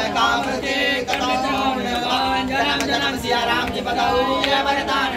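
Several voices singing a devotional chant together, continuing without a break.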